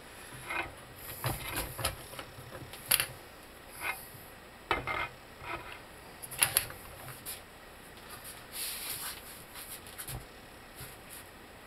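Irregular clicks, knocks and scrapes of metal tools and parts being handled while a rubber bushing is worked into a car's front control arm held in a vise. The sharpest knocks come about three seconds and six and a half seconds in, with a short stretch of scraping near the end.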